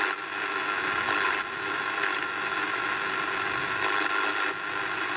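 Steady hiss of band noise from a CB radio receiver on upper sideband, with no readable station coming through.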